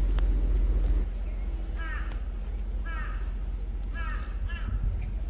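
A crow cawing repeatedly, short harsh calls about once a second from about two seconds in. It follows a low rumble in the first second that cuts off abruptly.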